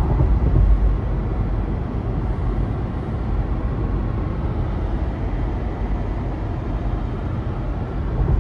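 Steady road and engine noise inside a moving car's cabin, mostly a deep, even rumble.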